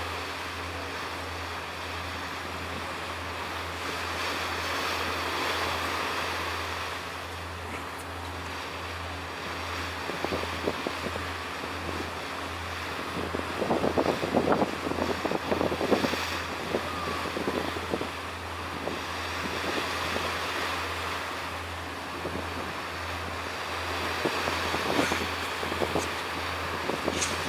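Wind blowing across the microphone over a steady low rumble, with harder crackling gusts buffeting it about halfway through and again near the end.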